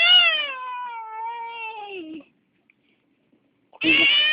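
A young child crying: one long, wavering wail that falls in pitch and breaks off after about two seconds, then another wail starting near the end.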